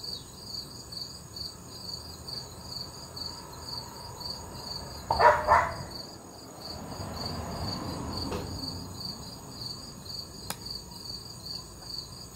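An insect chirping steadily at a high pitch, about three to four chirps a second. A brief louder noise comes about five seconds in, and a softer rushing sound follows a couple of seconds later.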